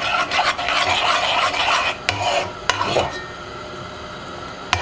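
Metal spoon scraping and stirring around the bottom of a pot of thickening meat gravy, with two sharp knocks of the spoon on the pot just after two seconds. The stirring stops about three seconds in as the spoon is lifted out, and starts again near the end.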